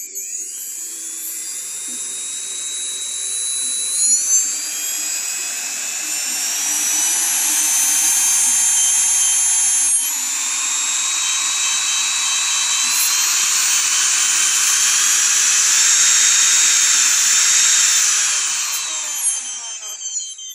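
Brushless electric motor of a Joysway US-1 RC boat, running on a 4S LiPo through its ESC and held in the hand on the bench, spinning up with a high whine. The pitch climbs in steps about 4 and 10 seconds in, holds, then winds down near the end.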